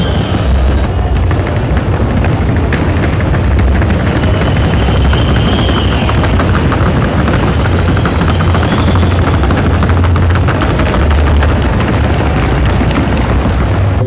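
Hoofbeats of a Colombian Paso Fino colt moving at its gait, a loud, rapid, even rattle of footfalls over a heavy low boom.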